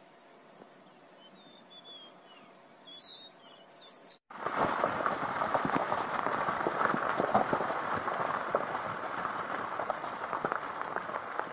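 A few faint bird chirps over a low background, with one louder chirp about three seconds in. Then, at a sudden change about four seconds in, heavy rain starts: a dense, steady hiss full of small crackles.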